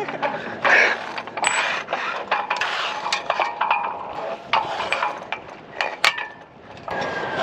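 Sailboat rigging and mast hardware being worked: an irregular run of metallic clicks and clinks, mixed with short rasps.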